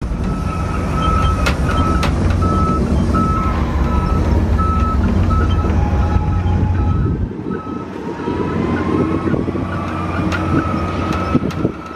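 Motorised Red Cap shuttle cart moving along the station platform, its warning beeper sounding about twice a second over a low rumble. The rumble drops away about seven seconds in, and the beeping stops about a second later.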